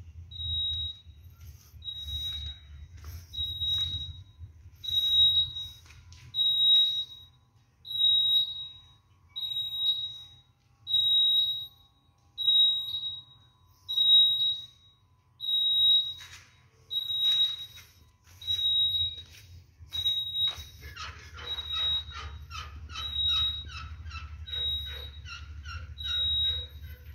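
An electronic alarm beeping steadily, one high beep of about half a second repeating about every 1.3 seconds. For the last several seconds a quicker series of lower, rising chirps sounds along with it.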